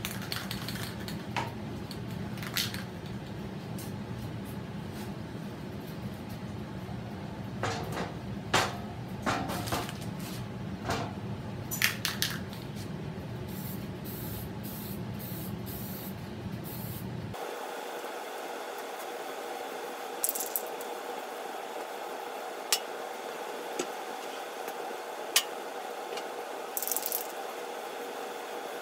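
Aerosol spray-paint can spraying in short hissing bursts, with a few sharp clicks in between.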